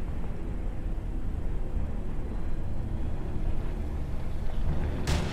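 Low steady rumble of distant aircraft engines droning, with a sudden loud rush of noise right at the end.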